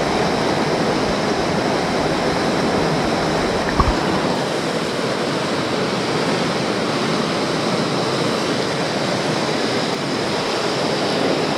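Steady rush of a fast mountain stream running over rock. For the first four seconds it is heard with the microphone underwater: a deeper rumble with a few knocks, the loudest just before the rumble drops away.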